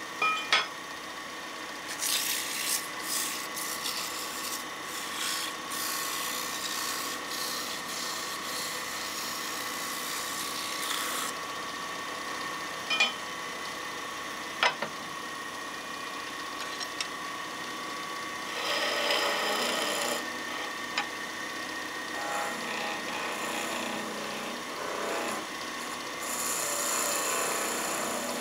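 Wood lathe running with a steady whine while a turning tool cuts a spinning pine blank, in three spells of hissing cutting noise: one long, two short. A few sharp clicks fall between the cuts.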